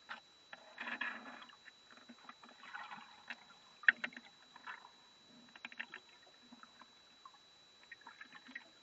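Water splashing and sloshing in irregular bursts as a wild cat wades and plunges in shallow water, with a few sharp clicks about four seconds in. A faint steady high tone runs underneath.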